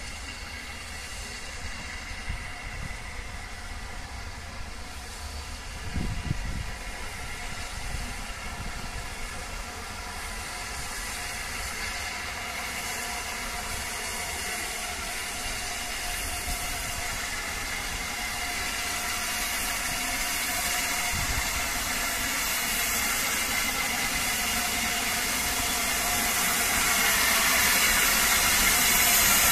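Peppercorn A1 class steam locomotive Tornado drifting into a station at low speed, its steam hissing and growing steadily louder as it approaches. There is a brief low thump about six seconds in.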